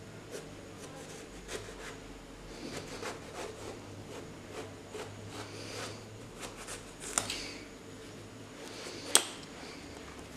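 A kitchen knife slicing long strips of skin and flesh from an aubergine: soft scraping cuts with small clicks, and two sharper clicks about seven and nine seconds in, the second the loudest.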